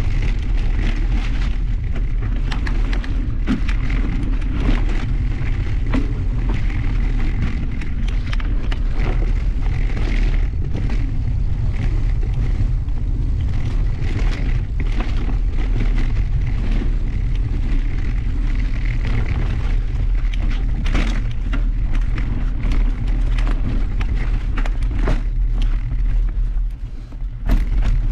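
Mountain bike riding down a leaf-covered dirt trail: steady heavy wind rumble on the microphone, tyres rolling over dirt and dry leaves, and frequent clatters and knocks as the bike goes over bumps. The rumble dips briefly near the end.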